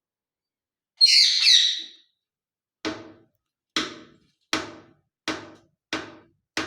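A parrot's high, squeaky call of about a second, followed by six short, sharp sounds evenly spaced about three-quarters of a second apart, each dying away quickly.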